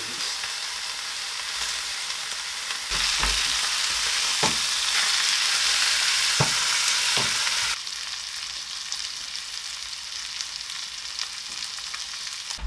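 Steak medallions sizzling as they fry in a hot pan: a steady spitting hiss. The hiss grows louder about three seconds in and drops back near eight seconds, with a few light clicks along the way.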